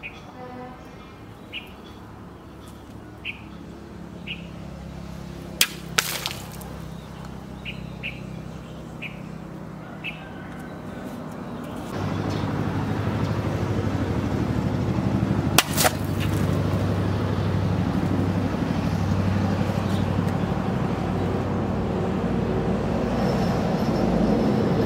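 A hand-forged knife blade made from a tractor disc chops through water-filled plastic bottles hanging on strings: a sharp double whack about six seconds in, and another single chop near the middle. Bird chirps come and go over a steady low hum, which gets louder about halfway through.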